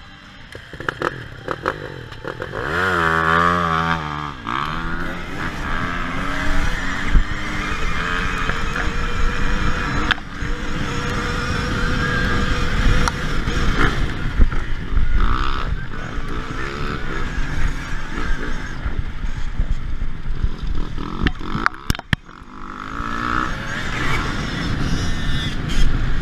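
Petrol dirtbike engines racing in a motocross pack. About two seconds in, a nearby bike revs hard with its pitch climbing and falling, then a steady mix of revving engines and tyre noise runs on, broken briefly near the end.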